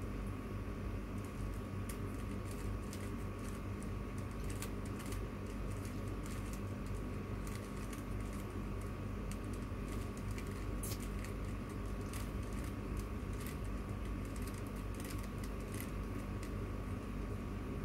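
Plastic 3x3 puzzle cube being solved by hand: quick, irregular clicking and clacking as its layers are turned, over a steady background hum.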